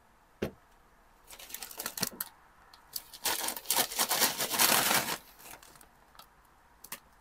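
Ridged potato crisps crunching and their foil packet crinkling: a few small clicks, then a dense crackle lasting about two seconds in the middle.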